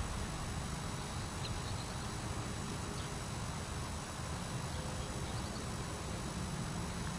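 Steady low rumble of outdoor background noise, with a few faint, short, high chirps.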